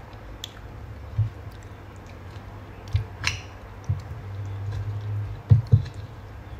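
A person chewing a mouthful of rice and smoked fish, with soft knocks and a brief scrape of a spoon and fork on a plate. Two knocks close together near the end are the loudest.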